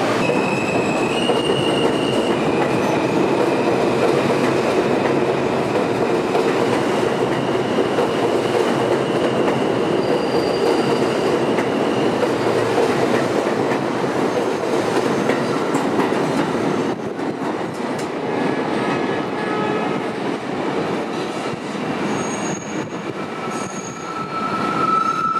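New York City subway train, an R160 M train, running through the elevated station: steady wheel-on-rail noise with several high, steady wheel squeals. The noise eases a little about two-thirds of the way through, and fresh squeal tones come in near the end.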